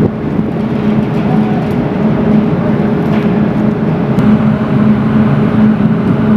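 Steady droning hum of shipboard machinery: one constant low tone over a rough mechanical rumble.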